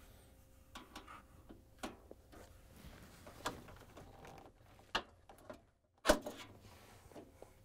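Scattered light clicks and knocks of a flathead screwdriver and gloved hands working the plastic locking clip and aluminium evaporator inside a refrigerator's freezer compartment, with the loudest knock a little after six seconds in.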